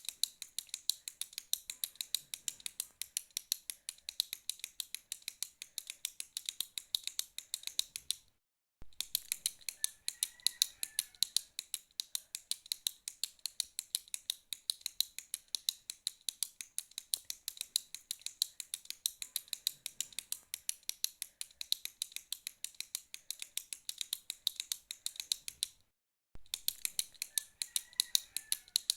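Retractable pen being clicked rapidly and steadily, a quick run of sharp, light plastic clicks several times a second. The clicking stops for about half a second twice.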